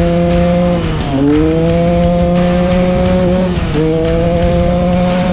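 Off-road vehicle engine pulling hard at high revs, its pitch dropping and climbing again at two gear changes, about a second in and near the end, with wind rushing over the microphone.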